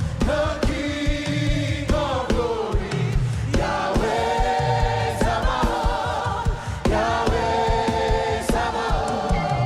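Gospel praise music: a choir and congregation sing held lines over a band with a steady beat.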